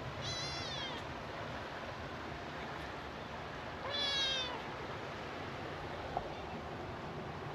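Cat meowing twice, two high-pitched calls falling in pitch about four seconds apart, the second louder.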